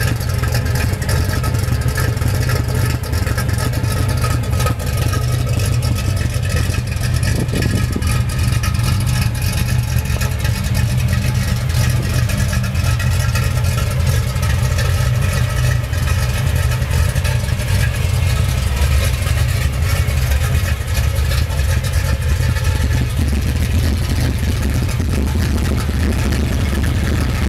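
1982 Chevrolet engine idling roughly, a steady low running sound throughout.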